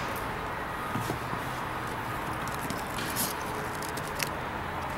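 Faint handling noise over a steady low hum: a few light clicks and rustles as hands work a plastic air-hose connector among a massage chair's seat springs.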